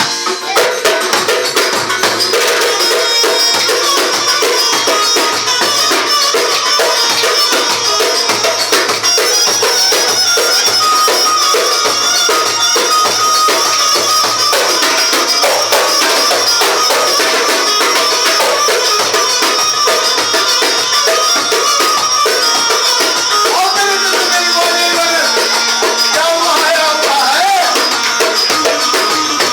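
Çiftetelli, Turkish folk dance music: a quick, steady hand-percussion rhythm under a melody line that bends and slides in pitch.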